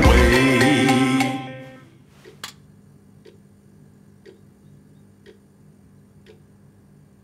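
The song's final chord fades out over about the first two seconds, then one sharp click and a wall clock ticking faintly once a second.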